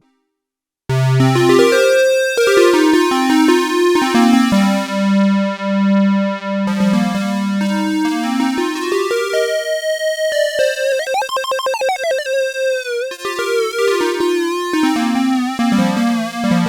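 Sequential Prophet-6 analogue polysynth playing a factory preset: a melodic line of bright, keyboard-like notes that starts about a second in. Around the middle one held note's tone sweeps brighter and back down.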